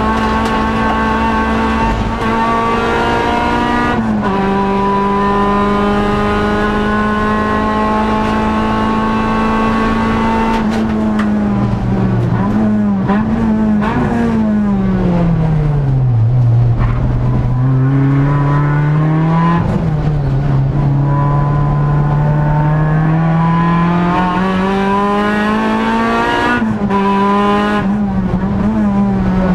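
Honda Civic EG race car's four-cylinder engine, heard from inside the stripped cabin. It holds high revs, the revs jump up and down briefly about 12 s in, then fall away to about half. From about 17 s they climb steadily back up, with short breaks near 20 and 27 s.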